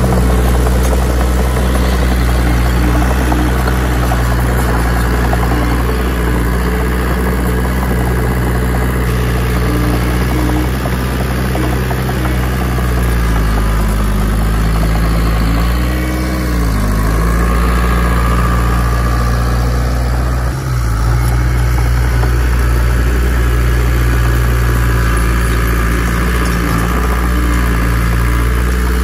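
Heavy diesel engine of earthmoving machinery running steadily with a deep drone. About halfway through, its pitch sags and then climbs back.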